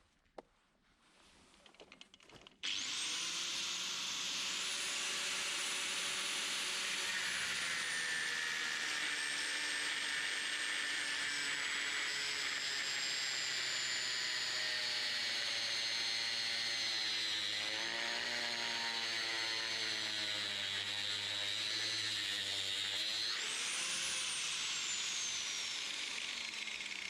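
Angle grinder cutting through a brake pad, starting about three seconds in after a quiet moment with a single click. The motor's whine sags slowly under the load of the cut, then jumps up near the end as the disc comes free and winds down.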